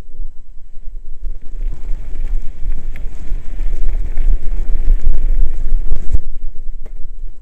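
Wind buffeting the microphone of a camera riding on a mountain bike, over the rumble and rattle of the tyres rolling on a loose gravel trail, with a sharp knock about six seconds in.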